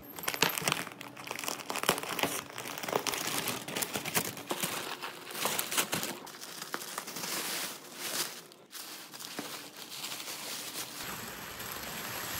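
Wrapping paper and crumpled kraft packing paper crinkling and rustling as a parcel is unwrapped by hand, with many sharp, irregular crackles.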